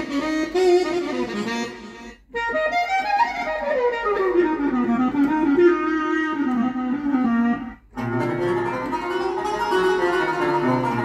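Korg Krome keyboard playing a gliding Turkish-style melody on a sampled string patch. The sound cuts out briefly twice as patches are switched. After the second switch a fuller sound with a plucked-string tone and low notes underneath comes in.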